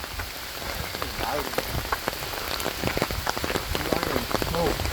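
Steady rain, with many close drops tapping sharply on an umbrella overhead.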